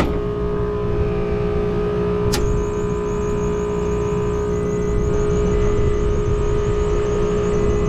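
Steady hum and rumble of rooftop air-conditioning machinery running, with a single sharp click a little over two seconds in.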